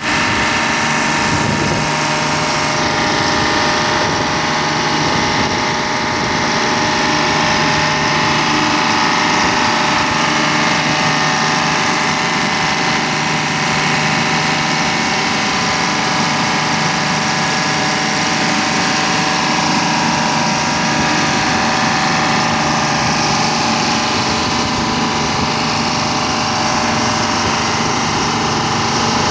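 Ingersoll Rand MW-175 road milling machine's Detroit Diesel engine running steadily, with several steady whining tones over the engine note.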